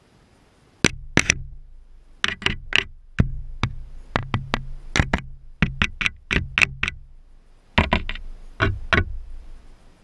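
A juvenile gull pecking and knocking its beak against a GoPro camera housing: about two dozen sharp taps in irregular bursts right on the camera, with a short pause shortly before the last few.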